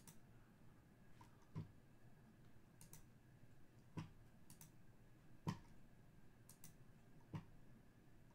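Near silence broken by a handful of soft, sharp clicks, four of them a little louder and spaced a second or two apart.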